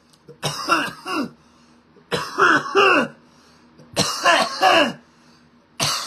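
A man coughing hard in repeated double coughs, a pair about every two seconds, from inhaling a dab of cannabis concentrate.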